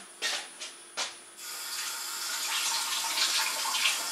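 A few short knocks, then about a second and a half in a kitchen tap is turned on and water runs steadily into the sink.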